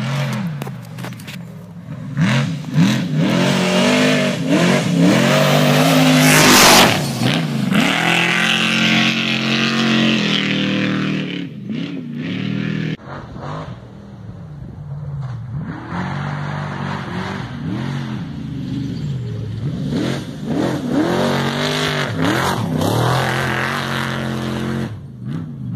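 Off-road desert race vehicles speeding past on a dirt track, their engines revving and easing off so the pitch rises and falls again and again, with several passes.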